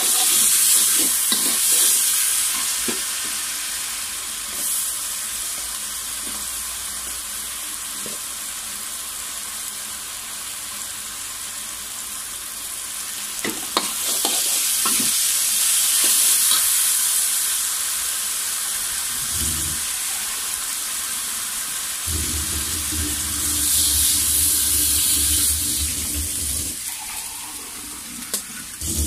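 Chili paste and sliced vegetables sizzling in a wok while being stir-fried, with the spatula scraping and tapping against the pan. The sizzle swells several times, and a low hum comes in during the last quarter.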